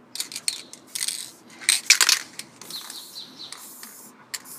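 Aerosol spray-paint can hissing in short bursts, the strongest about two seconds in, mixed with quick metallic clicks and clinks of the can's mixing ball.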